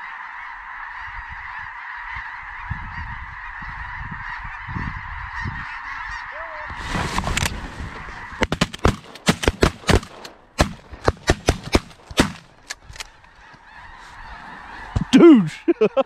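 A big flock of snow geese calling overhead in a dense, steady clamour, then from about seven seconds in a rapid string of many shotgun shots fired at the flock, with the geese still calling through it. A single loud, falling goose call stands out near the end.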